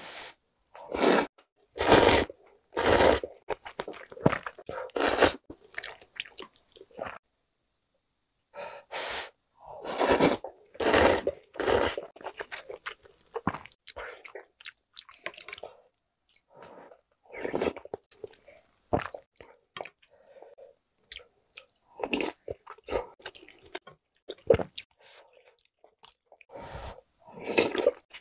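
Mukbang eating sounds: chewy jjolmyeon noodles in soft-tofu broth slurped in loud short bursts, in two runs in the first half, then wet chewing and small mouth clicks.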